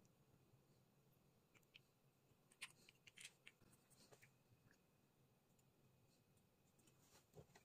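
Near silence, with a few faint clicks and taps of small plastic parts being handled, clustered about three seconds in and again near the end.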